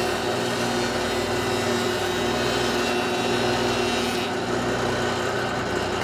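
Jointer running and planing the edge of a plywood panel fed across its cutterhead: a steady motor hum under the hiss of the cut. The hiss thins out a little past four seconds in as the pass ends, leaving the machine running.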